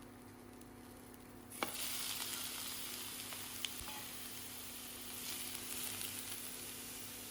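Food sizzling in a hot frying pan: about a second and a half in, a sharp clack, then a sudden steady sizzle sets in, with a light click a couple of seconds later.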